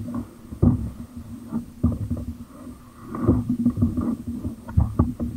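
Irregular low thumps, knocks and rubbing close to the microphone as a paddler shifts about in a plastic kayak and handles his gear.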